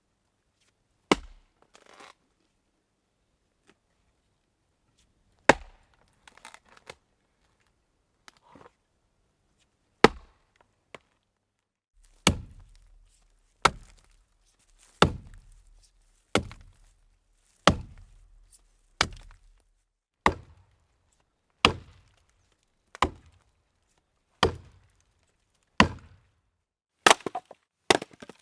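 Axe blows chopping into wood: sharp single strikes, the first few spaced several seconds apart with a short crackle of splintering after them, then a steady series of chops about one every second and a half, with a few quicker blows near the end.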